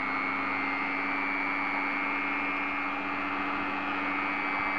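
Dremel rotary tool with a cut-off wheel running steadily at full speed without touching anything, a constant high-pitched whine over a low hum.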